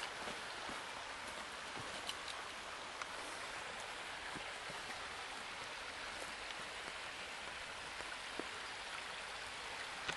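Steady rushing hiss of a stream flowing, with a few faint crackles of footsteps in dry leaves and brush.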